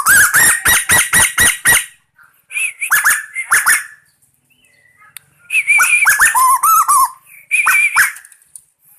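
Pet bird (burung tuwu) calling in a fast run of short, harsh notes, each dropping in pitch, about seven in the first two seconds. Further clusters of calls follow after a brief pause.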